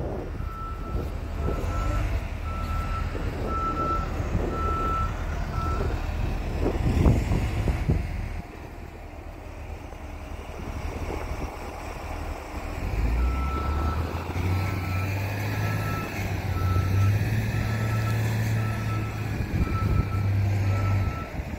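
Volvo wheel loader's diesel engine running with its reversing alarm beeping about once a second, in two stretches of several seconds. The engine runs harder during the second stretch, and there are a few knocks about seven seconds in.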